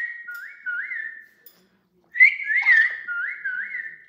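Amazon parrot whistling a tune in two phrases of several swooping up-and-down notes, with a short pause between them.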